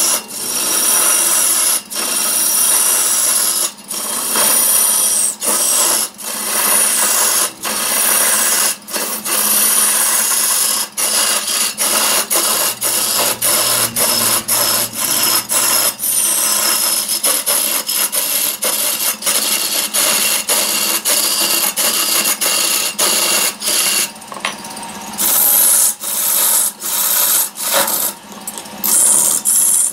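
A wide hand-held scraping tool cutting into a wooden log spinning on a lathe: a loud, harsh scraping of wood being shaved away, broken by many brief breaks about once a second.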